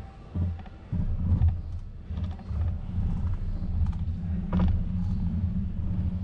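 Low, uneven rumble with scattered clicks and rattles, as from a bicycle rolling over paving with a camera mounted on it.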